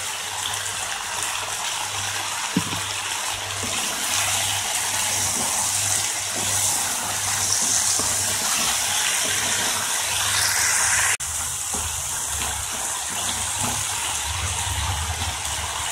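Chopped potato and capsicum sizzling in hot oil in a non-stick pan: a steady hiss, with a few faint knocks as the mixture is stirred with a wooden spatula.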